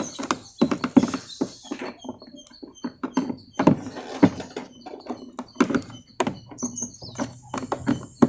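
Irregular clicks, taps and knocks of hand work on a top-load washing machine's plastic cabinet as the body screws underneath are undone with hand tools.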